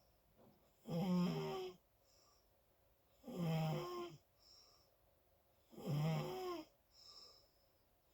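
Loud snoring: three long, even snores about two and a half seconds apart, each with a faint softer breath between them.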